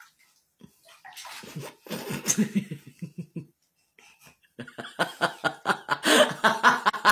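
A person laughing in quick repeated pulses: one run of laughter about a second in, a short pause, then a longer, higher run of laughter from about halfway through.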